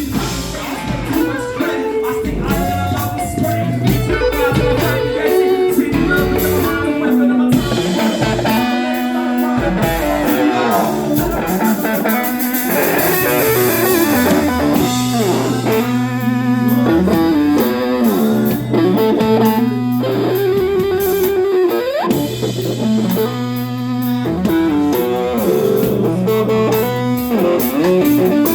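Live band playing a bluesy rock instrumental passage led by guitar.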